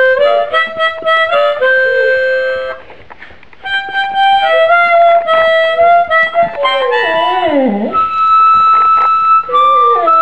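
Harmonica playing a slow melody of held notes and chords, with a short break about three seconds in. About seven seconds in there is a long downward slide in pitch, followed by a held high note.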